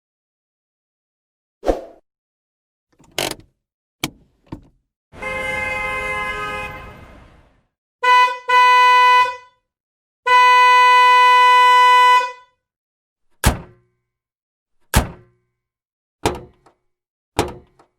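Car horn honking twice briefly, then once held for about two seconds, steady in pitch. Before it come a few sharp clunks and clicks and a fading tone with a hiss; after it come four more single clunks, about a second or so apart.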